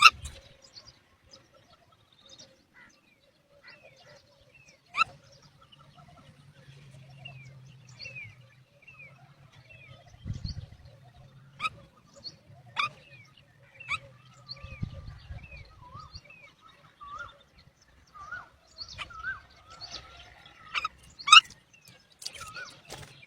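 Myna calling: scattered short chirps and down-slurred whistles, a parent's call to its chicks to feed, with a few sharp clicks and a busier run of calls near the end.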